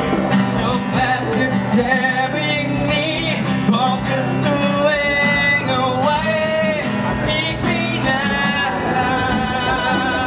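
A man singing a slow pop song, accompanied by a strummed acoustic guitar, in an amplified live performance.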